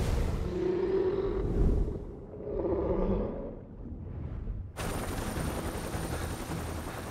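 Film sound design: a deep, rumbling creature growl under water, the mosasaurus, with drawn-out low tones. About five seconds in it cuts abruptly to the steady noise of a helicopter cabin in flight, with a thin high whine.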